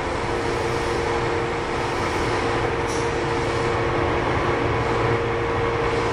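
Inside a Keihan 13000 series electric commuter train during a station stop: a steady low rumble with a constant two-note hum from the train's electrical equipment.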